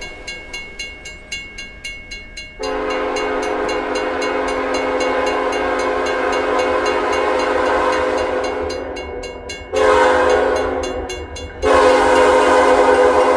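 Horn of a freight train's lead EMD SD70M-2 locomotive, a loud chord of several notes blown in three blasts. A long blast starts suddenly about two and a half seconds in, a second blast comes about ten seconds in, and a third starts just after and runs on. Before the horn, a quick regular ringing of strokes is heard.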